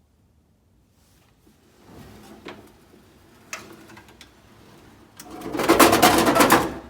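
Onan generator moving on its drawer slides, with faint rubbing and a few knocks, then a loud scrape near the end as the unit slides over the duct that exhausts air out the bottom of the bay.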